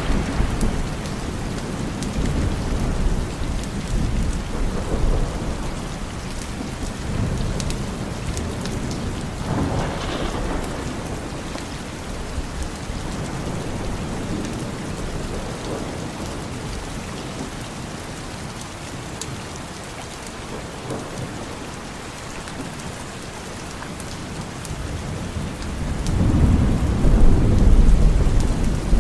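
Steady rain with rolling thunder: a rumble dying away at the start, a shorter one about a third of the way in, and a louder rumble building near the end.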